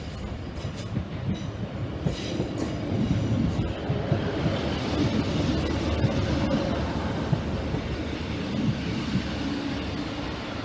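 Northern Class 156 diesel multiple unit arriving at the platform. Its low engine rumble and wheel-on-rail noise swell about four to six seconds in, then ease a little.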